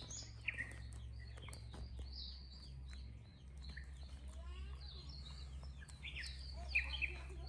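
Small birds chirping repeatedly in short calls, some falling in pitch, over a steady low hum, with scattered small clicks.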